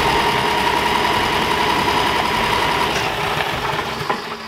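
Steady sound of a small single-cylinder gasoline engine that fades away near the end.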